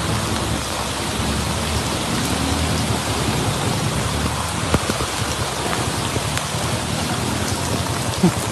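Heavy rain falling steadily on a flooded street: an even hiss of rain on water. There is a short sharp knock about five seconds in and another near the end.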